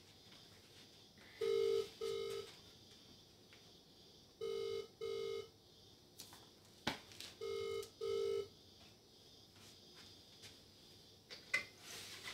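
Telephone ringback tone of an outgoing call: three double rings, each a pair of short beeps, repeating about every three seconds in the Australian double-ring pattern. A short click comes between the second and third rings.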